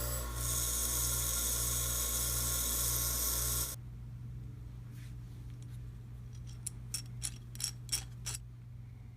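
A power tool runs steadily and is switched off about four seconds in. A quick, uneven series of light metal clicks and taps follows.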